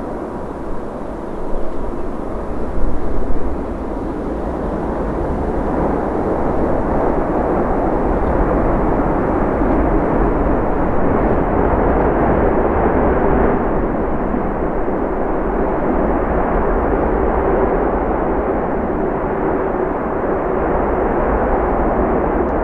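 Airbus A380 jet engines running during the landing roll: a steady rushing noise that grows louder a few seconds in and stays loud. There are a few brief louder bumps about two to three seconds in.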